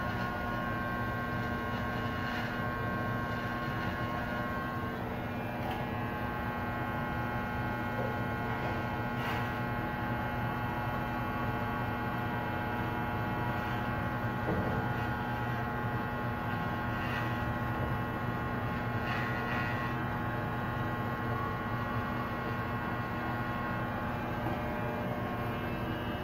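Electric hair clippers buzzing steadily, with a few faint clicks.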